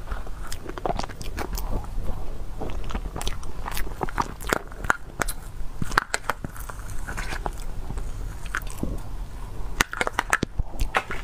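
Eating sounds of a fresh-cream cupcake: mouth smacking and chewing, with many sharp clicks and crackles from the spoon and the clear plastic cup it is eaten from.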